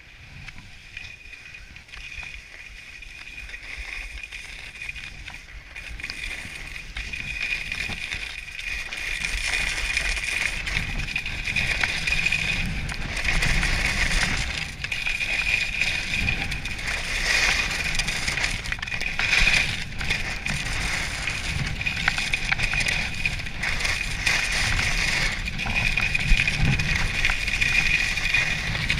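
Skis sliding and scraping over firm groomed snow, with wind rumbling on the microphone. Both get louder over the first ten seconds as the skier picks up speed, then run on steadily.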